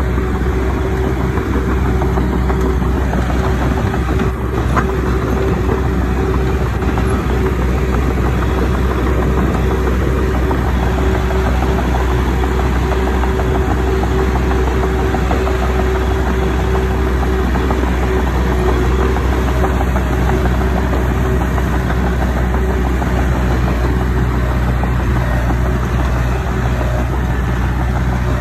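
Diesel engine of earthmoving machinery running steadily at an even speed, with a low hum and a faint held tone over it.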